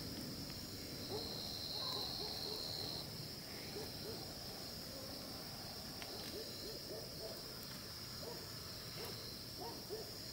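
Steady high-pitched insect chorus, with short, low hoot-like animal calls repeating many times from about a second in.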